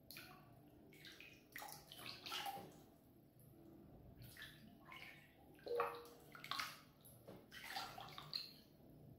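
Bath water softly lapping and splashing as a person shifts while soaking in a full bathtub: a series of irregular small splashes, the loudest about six seconds in.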